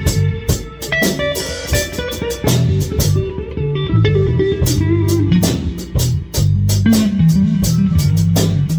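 Live band jam: electric guitar playing over a bass guitar line, with drum kit hits and cymbals keeping a steady beat.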